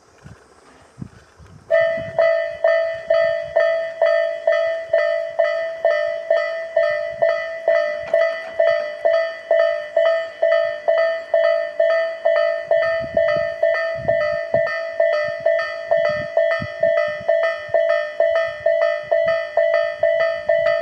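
Japanese railroad level-crossing warning bell starting up about two seconds in, then ringing steadily with a repeated clang, about two strokes a second: the signal that a train is approaching.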